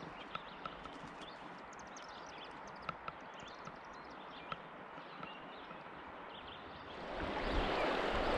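Faint calm-river ambience with a few sharp, isolated knocks and light high chirps, then about seven seconds in the sound swells into the steady rush of fast water over a riffle.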